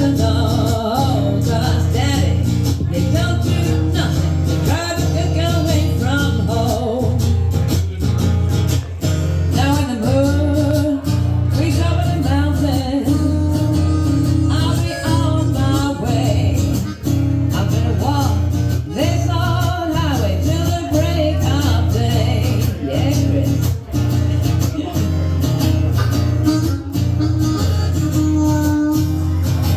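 Live band playing a song: a singer over guitars and a steady beat, continuing without a break.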